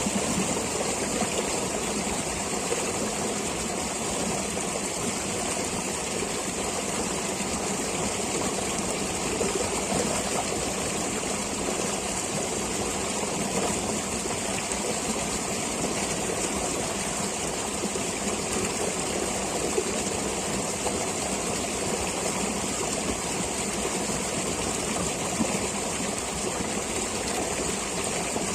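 Stream of flowing water running steadily: an even rushing hiss with no breaks.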